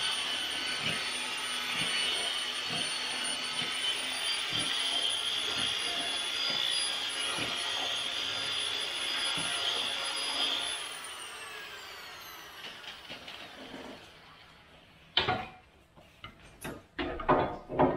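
Corded electric drill with a paddle mixer running steadily in a plastic bucket, stirring two-part Matrix Dryve casting mix. About eleven seconds in the trigger is released and the motor whine falls in pitch as it spins down, followed by a few knocks near the end.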